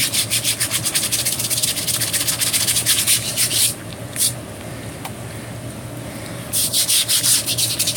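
A stiff hand brush scrubbing wet, burned wood in quick back-and-forth strokes, scouring the carbon out of Lichtenberg burn channels. The scrubbing stops for about three seconds in the middle, with one lone stroke, then starts again.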